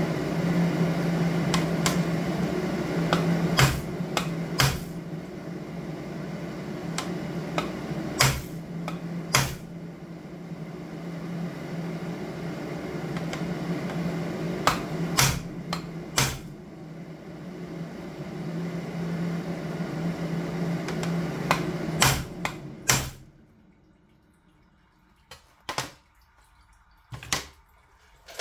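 Steady electrical machine hum with sharp metal clinks and taps as aluminum sheet parts are handled and fitted together. The hum cuts off suddenly about three-quarters of the way through, leaving only a few quiet clicks.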